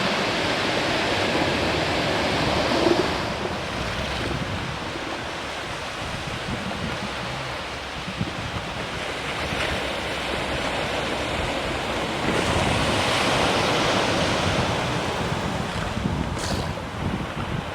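Ocean surf washing onto the beach in a steady rush, louder at first, easing off, then swelling again about two-thirds of the way through.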